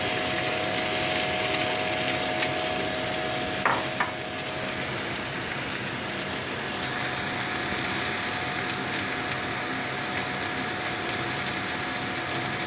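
Pork ribs, vegetables, peas and two eggs sizzling steadily on a hot flat griddle plate, with a couple of light knocks about four seconds in.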